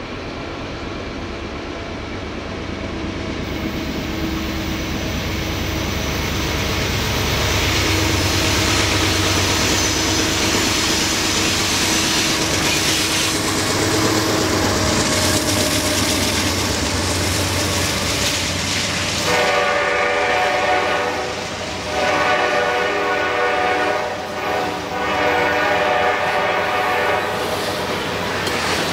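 Norfolk Southern GE Dash 9-40CW diesel freight locomotives passing close, the engine rumble building as they come by, with wheels clattering on the rails. From about two-thirds of the way in, the locomotive horn sounds long, long, short, long: the standard signal for a grade crossing.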